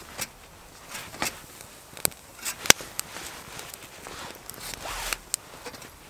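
Wood fire crackling in a small hobo stove, with irregular sharp pops, the loudest a little under three seconds in, along with brief scraping and rustling as flatbreads are handled over it.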